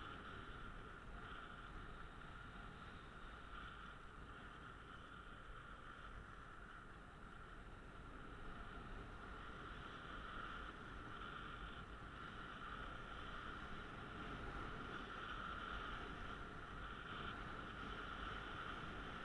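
Steady hiss of sliding downhill over a groomed snow track, with wind rushing past the microphone; it gets a little louder in the second half.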